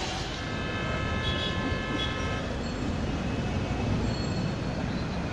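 A horn sounds one steady blast for about two seconds, over a continuous low rumble of traffic.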